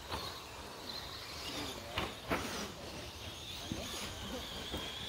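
1/10-scale two-wheel-drive short course RC trucks running on a dirt track, a steady mechanical noise, with two sharp knocks a third of a second apart just after two seconds in.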